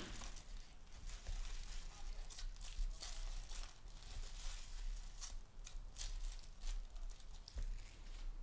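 Plastic wrapping of trading card packs being torn open and crinkled, with many short sharp rustles.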